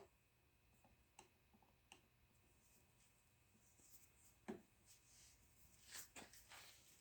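Near silence, with a few faint clicks and a light knock about four and a half seconds in, and a short cluster of faint knocks near the end.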